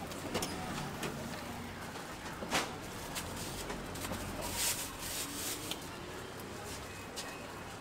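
Low, steady background hum of a street-food stall, with a few light clicks and a brief rustle of a plastic bag about halfway through.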